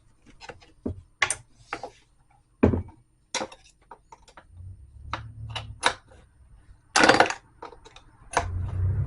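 Irregular clicks, knocks and short scrapes of small metal clips and lock parts being worked into a plastic motorcycle top box, the longest scrape about seven seconds in. A low rumble starts near the end.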